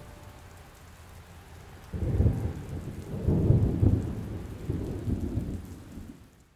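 Rain falling steadily, then thunder breaking suddenly about two seconds in and rumbling in rolling waves for several seconds before fading away.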